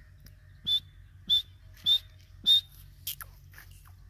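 Grey francolin calling: four loud, shrill, evenly spaced notes about half a second apart, followed by a few fainter calls near the end.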